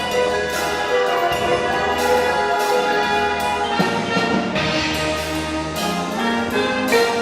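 Indoor winds ensemble playing a brass-led passage of sustained chords, with percussion hits here and there.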